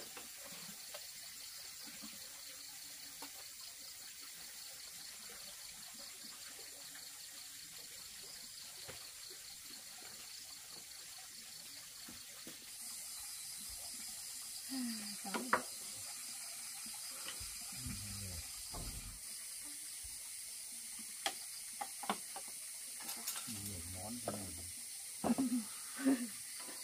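Bowls and plates clinking and knocking as they are set down on a wooden table, a few light strikes spread over the second half, with a few short low murmurs of voice. A steady hiss lies underneath.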